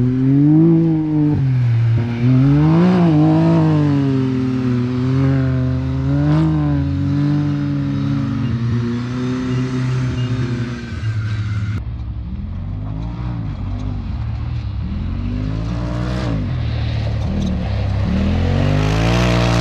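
Off-road race vehicle engine revving up and down again and again as it is driven hard. About twelve seconds in the sound changes abruptly and a second run of rising and falling engine revs follows.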